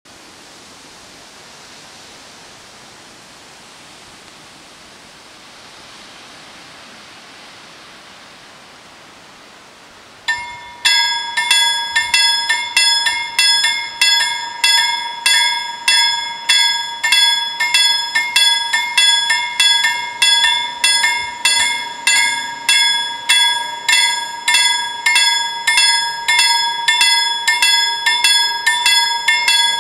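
Swedish level-crossing warning bells start up about a third of the way in and ring on in rapid, evenly repeated strokes, signalling that the crossing has activated for an approaching train. Before that there is only a faint steady hiss.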